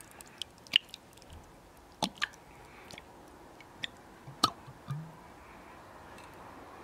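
Thick tomato salsa squelching out of an upturned bottle squeezed by hand into a bowl of cream, with several sharp little clicks and pops.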